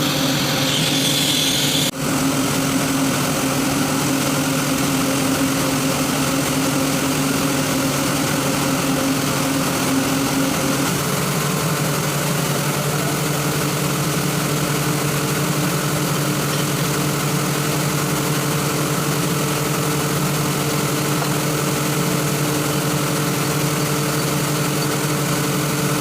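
Atlas Copco GA 165 rotary screw air compressor running with a steady hum made of several constant tones. About eleven seconds in, one of those tones shifts slightly higher.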